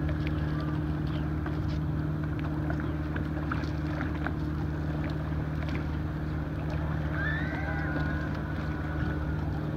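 Boat's outboard motor running steadily at trolling speed, with a few light clicks and knocks scattered through.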